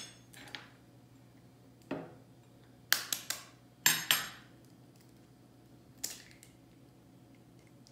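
A metal teaspoon tapping an eggshell to crack it: a few sharp clicks, some in quick succession, with a softer crack about six seconds in as the shell is broken open.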